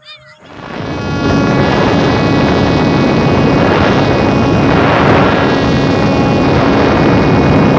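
Motor of a home-made RC model SU-27 fighter plane in flight, heard from a camera on board: a steady whine over a loud rush of air, coming in about half a second in.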